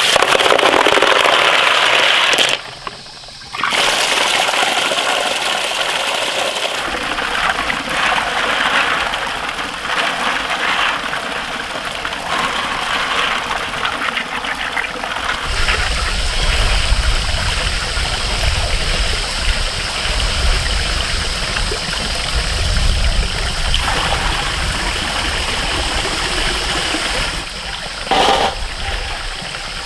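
Tap water gushing into a metal basin, with hands swishing and rubbing snails in the water. The flow breaks off briefly about three seconds in, and a low rumble joins under it about halfway through.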